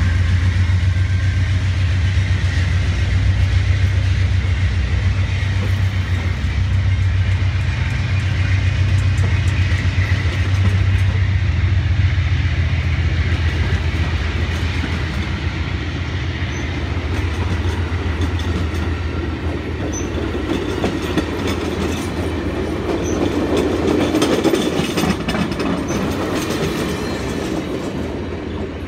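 Amtrak passenger train rolling past a station platform. A low, steady diesel-locomotive drone fades over the first half as the cars go by, then the wheels click over the rail joints. The sound eases off near the end as the last car draws away.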